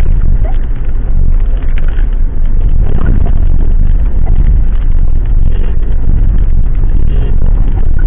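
Loud, steady low rumble of a moving ambulance picked up by its dashcam: engine, road and wind noise while driving.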